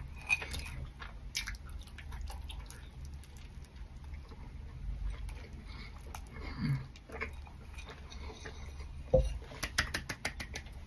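A person biting and chewing a bacon sandwich, with scattered small clicks over a low steady hum.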